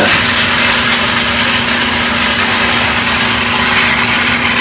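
Steady machine hum with a loud, even airy rush, from a motor running nearby.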